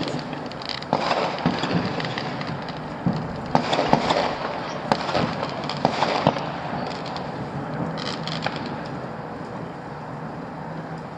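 Bonfire Night fireworks going off: a dense run of irregular bangs and crackles from many fireworks, thinning out after about eight seconds.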